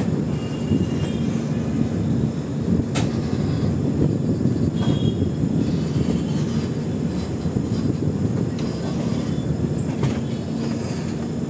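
LHB passenger coach rolling along the track, heard from its open doorway: a steady loud rumble of wheels on rail with wind, and one sharp click about three seconds in.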